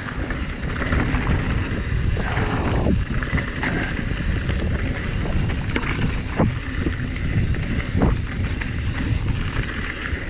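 Mountain bike riding on dry dirt singletrack: wind buffeting the microphone over tyre rumble on the trail, with a few scattered knocks and rattles, the loudest about eight seconds in.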